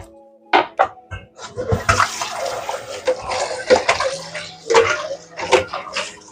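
A few sharp knocks, then water running or pouring steadily from about a second and a half in, with more knocks through it.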